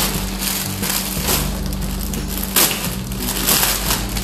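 Clear plastic packaging crinkling and crackling as fabric items are pulled out of it and handled, with a sharper crackle a little past halfway.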